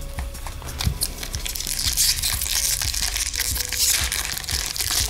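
Crinkling and crackling of a hockey card pack's wrapper, handled and worked open by hand. The crackle is dense and rough and grows busier about a second in.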